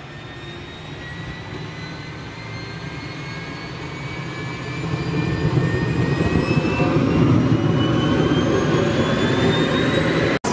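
Helicopter turbine engine spooling up: a whine that rises slowly in pitch over a growing low rumble, getting much louder about five seconds in.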